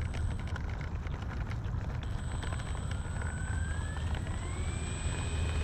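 Twin electric motors and propellers of an RC P-38 model taxiing on the ground, their whine rising in pitch about halfway through as the throttle opens, then holding steady over a constant low rumble.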